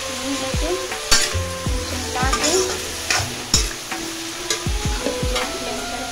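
A metal spatula stirs pumpkin strips frying in oil in a pan. The oil sizzles, and the spatula scrapes sharply against the pan a few times.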